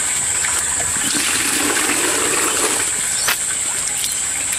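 Water spurting and splashing out of a PVC outflow pipe onto the gravel of an aquaponics grow bed once the tap below is opened. The water rushes for about two seconds from about a second in, and there is a sharp click near the end.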